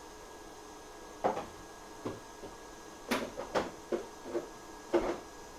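A run of about seven short knocks and clicks of hand tools being handled and set down on a workbench, starting about a second in and spaced irregularly, over a faint steady electrical hum from the bench equipment.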